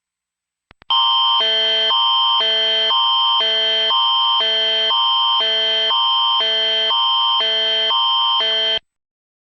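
Mock Emergency Alert System attention signal: a loud electronic alarm that switches between two tone-chords about twice a second over a steady high tone. It lasts about eight seconds, follows two faint clicks, and cuts off abruptly.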